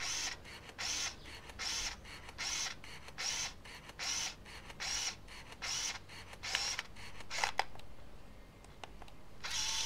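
Olympus IZM300 compact film camera firing in continuous shooting mode: shutter release and motorised film advance repeating about once every 0.8 seconds. About seven seconds in the run stops, and near the end the motor starts rewinding the film.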